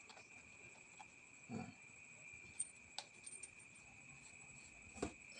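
Faint scattered clicks and soft knocks from handling the metal detector's plastic parts while the large search coil and its pole are being fitted, over a faint steady high-pitched whine.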